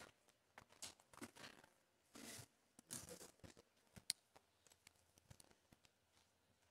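Near silence broken by faint rustling and scattered small clicks of papers and a clip-on microphone being handled, with one sharper click about four seconds in.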